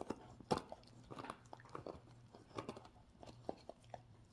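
A dog gnawing on a ring-shaped chew: a faint, irregular run of short clicks and crunches from its teeth, a few a second.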